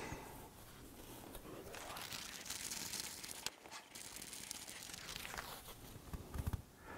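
Faint crinkling and rustling as a thin wrapping sheet and fiberglass insulation are handled and pressed into a sheet-metal oven chassis, with a few small knocks near the end.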